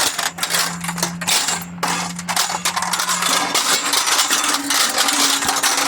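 Thin sheet-metal ductwork scrap clattering and crinkling as it is handled, in a dense run of small clinks and crackles. Underneath runs a steady low hum that drops out about three and a half seconds in, and a slightly higher hum takes over shortly after.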